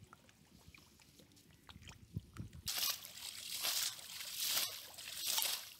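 Muddy water sloshing and splashing as a child's hands grope through a shallow flooded mud pit, starting about three seconds in and coming in uneven surges; before that only a few faint soft thuds.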